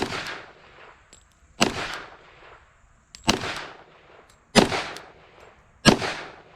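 Five shots from a Glock 40 10mm Auto pistol firing 125-grain Sinterfire ammunition, spaced about one and a half seconds apart, each trailing off in a short echo.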